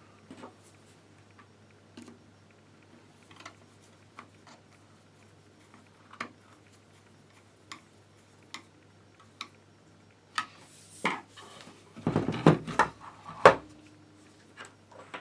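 Small clicks and taps of hard rifle parts being handled while a screw is fitted during assembly of an airsoft rifle, with a burst of louder knocks and rattles about two-thirds of the way in.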